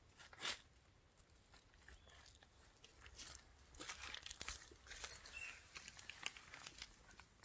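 Faint crackling and rustling of dry leaf litter in scattered small clicks, with one sharper crackle about half a second in and busier crackling from about three seconds on.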